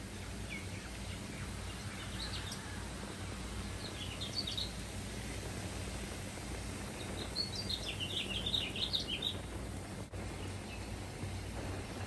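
Steady low hum and road noise of a moving car, with bird chirps heard in short bursts, the busiest flurry of chirping from about seven to nine and a half seconds in.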